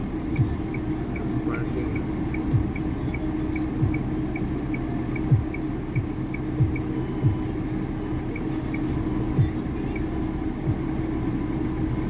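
Van engine idling, heard from inside the cabin: a steady low hum with irregular low thumps about once a second, and a faint quick ticking, about three ticks a second, that dies out near the end.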